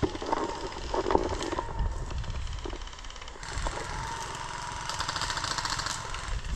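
Footsteps and handling thumps as the player walks through pine woods with a body-worn camera. About halfway through, a fast, even rattle starts and runs for about three seconds.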